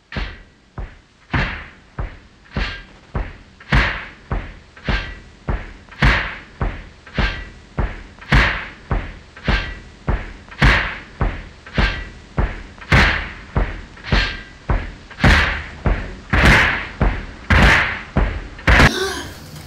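Heavy bangs repeating at a steady pace, a little under two a second, each followed by a short echo. A brief burst of noise comes near the end.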